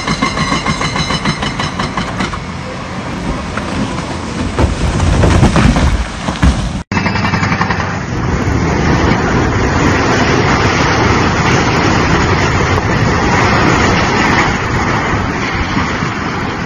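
Hydraulic demolition excavators at work. First a diesel engine runs hard with a high whine, swelling to a heavy low rumble about five seconds in. After an abrupt cut there is a steady, dense rumbling noise as a concrete frame building is brought down.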